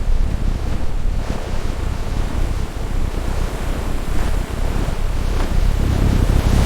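Steady rushing of ocean waves and wind, with a heavy low rumble.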